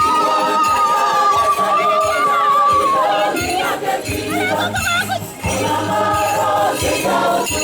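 Church choir singing a Karimojong hymn over a low rhythmic accompaniment. One high voice holds a long steady note for about the first three seconds, then several voices carry on with wavering, ornamented lines.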